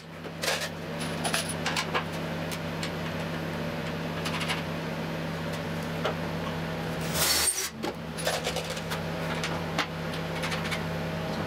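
Small metal clicks and clinks as screws and aluminium rail parts are handled, over a steady low hum, with a short louder burst of noise about seven seconds in.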